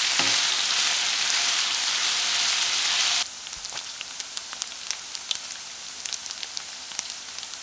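Chopped bacon frying in a skillet: a loud, even sizzle that cuts off about three seconds in, giving way to a quieter sizzle with many small crackling pops as the bacon bubbles in its rendered fat and turns crisp.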